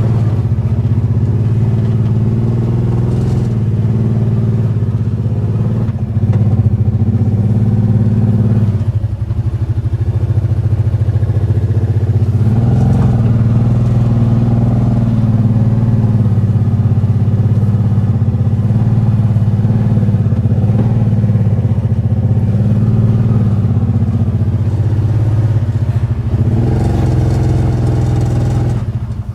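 An engine running steadily under load while towing a mini towable backhoe. It eases off about nine seconds in and picks up again around twelve seconds.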